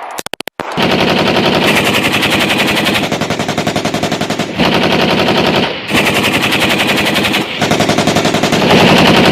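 Automatic gunfire: a few separate shots, then rapid fire in long continuous bursts with brief pauses between them.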